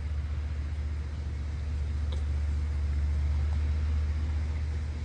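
Steady low rumbling hum, with a faint click about two seconds in.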